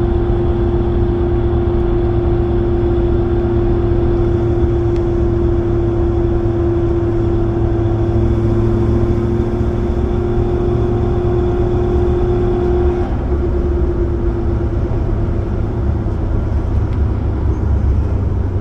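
Toyota Tundra pickup at road speed: a loud, steady hum over the road rumble that cuts off about two-thirds of the way through, then briefly wavers in a 'wah-wah' as the gas is let off. The owner suspects bad wheel bearings.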